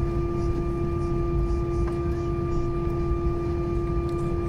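Cabin noise in an Airbus A321-200 taxiing: the engines' steady hum carries a constant tone over a low rumble.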